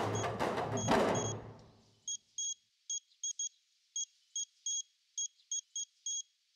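A handheld radiation dosimeter beeping at irregular intervals with short high-pitched beeps as it registers radiation. Drum-heavy music fades out over the first two seconds, leaving the beeps alone.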